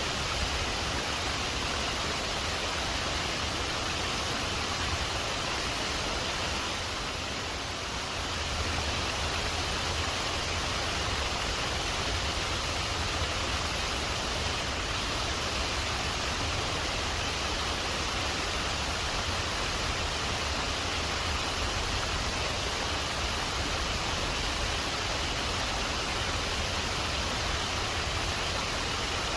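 Waterfall rushing steadily, an even wash of falling water that dips slightly about seven seconds in.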